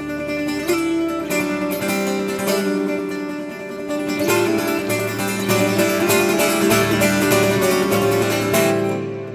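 Steel-string acoustic guitar played solo, a run of picked notes over ringing low bass notes, improvised.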